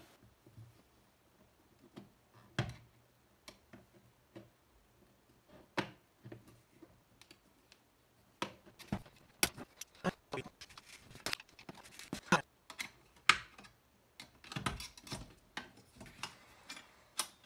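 Small screws being undone with a screwdriver and the perforated aluminium case of a Mac Cube 205W power supply being handled and slid apart: scattered clicks and light metallic taps, sparse at first and coming much more often over the second half.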